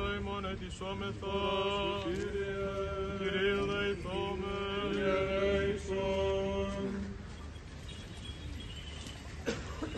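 Male voices chanting Greek Orthodox Byzantine chant of a memorial service, a low note held steady beneath a melody that moves above it. The chant stops about seven seconds in.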